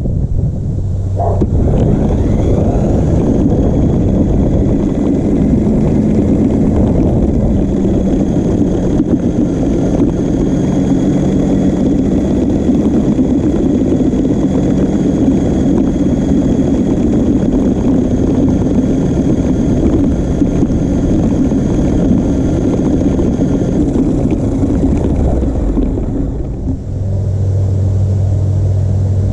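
Toy-grade RC monster truck's electric motor and gearbox running with a steady whine over a heavy rumble of tyres and chassis, picked up by a camera mounted on the truck's body. The motor spins up about a second in and eases off shortly before the end.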